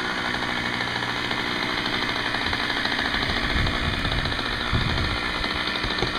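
Small glow-fuel model airplane engine on a radio-controlled Super Decathlon running steadily on the bench, a fast, even buzz.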